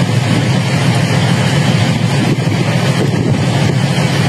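A fishing trawler's engine running steadily as the boat comes slowly into harbour: an even low rumble with hiss above it.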